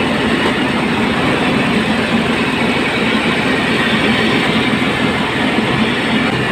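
Truck-mounted mobile rice mill running under load: its engine and belt-driven husking and milling machinery make a loud, steady mechanical clatter as palay is milled.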